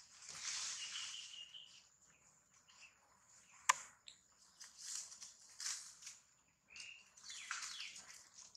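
Soft rustling in dry leaf litter in short bursts, with one sharp click about halfway through. Two brief high chirps come about a second in and again near the end, over a faint steady high tone.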